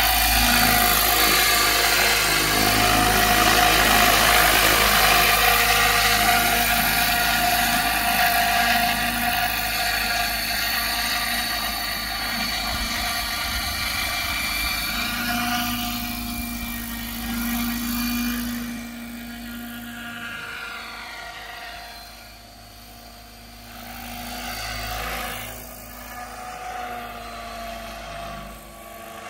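Align T-Rex 600 radio-controlled model helicopter in flight, a steady high rotor and motor whine with several pitched tones. It is loud at first, then fades as the model flies off into the distance about two-thirds of the way through, and swells a little again near the end.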